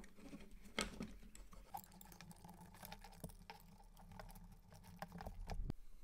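Faint, irregular small clicks and taps of fingers working thin motor wires through the plastic shell of a DJI Mavic Mini drone, over a faint low steady hum.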